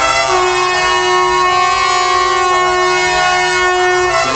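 Truck air horns sounding one long chord of several tones for about four seconds, the pitch stepping a few times before it stops near the end.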